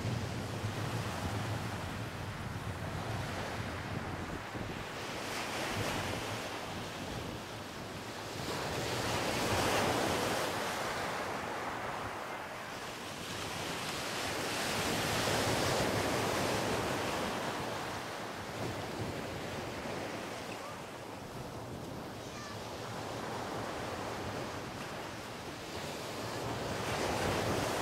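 Small waves breaking and washing up a pebbly sand beach, the surf swelling and fading every several seconds, with wind buffeting the microphone.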